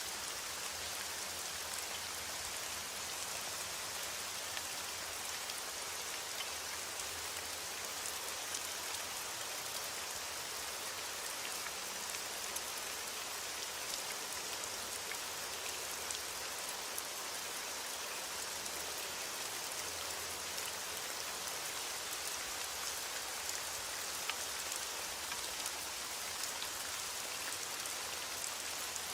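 Steady rain falling, with a constant hiss and many small drops ticking on a surface.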